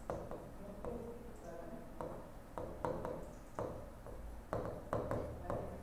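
Handwriting on an interactive touchscreen board: light, irregular taps and clicks as each letter is written on the glass.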